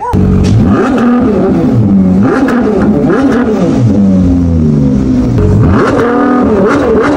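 V12 engine of a Ferrari Competizione revving hard and loud, its pitch climbing and falling again several times in quick succession.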